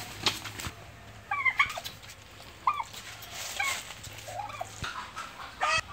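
Domestic turkeys calling in short, sharp notes, in clusters about a second apart. A couple of sharp knocks come in the first second.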